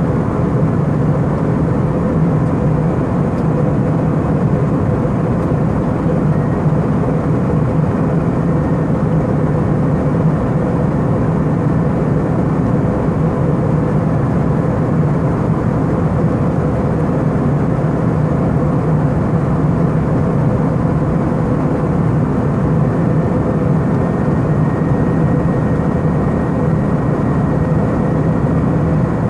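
Airbus A319 passenger cabin in flight: a steady roar of engines and airflow, heaviest in the low range, with a faint steady hum.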